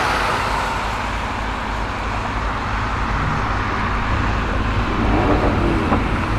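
Steady road traffic noise from cars, with no revving or exhaust crackles.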